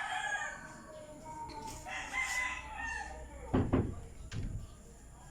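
Several roosters crowing, their calls overlapping, from a neighbour's flock of fighting cocks. Just past the middle come two or three loud, sharp knocks.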